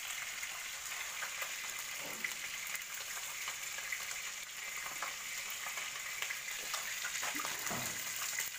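Fish frying in hot oil in a skillet: a steady sizzle with scattered small pops and crackles.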